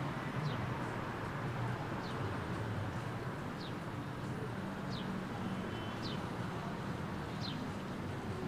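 Outdoor street ambience: a steady low background hum, with short, high bird chirps that each fall in pitch, repeating about every second and a half.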